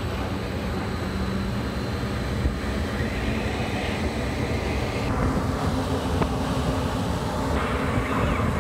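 Strong wind from a museum wind-machine booth blowing on the people inside: a loud, steady rush of air buffeting the phone's microphone.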